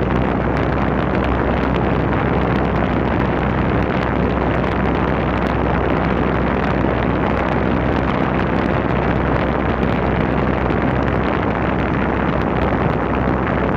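KOENIC electric fan running steadily: an even, loud rush of air with a low hum, the airflow buffeting the microphone.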